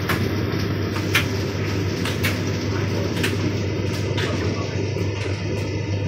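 Hoover Dynamic Next tumble dryer running with a load of clothes: a steady motor hum under the rush of the turning drum, with a light tap about once a second.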